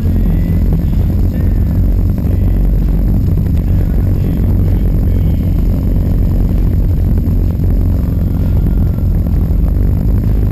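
Large V-twin touring motorcycles cruising, their engines giving a steady low rumble at even speed, picked up along with wind by a camera on a following bike.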